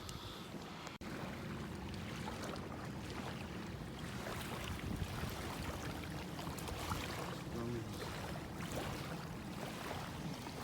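Steady wash of water and wind noise with small scattered knocks, broken by a brief dropout about a second in.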